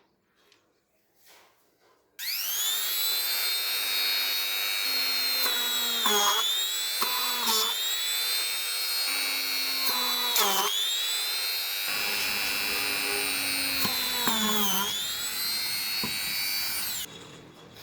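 Small electric motor whining at high speed. It spins up sharply, sags in pitch briefly about four times as if loaded, then stops abruptly.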